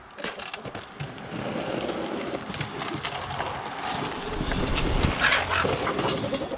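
A flock of chickens crowding in to be fed, with scattered clucks and rustling. A low rumble of wind on the microphone builds partway through.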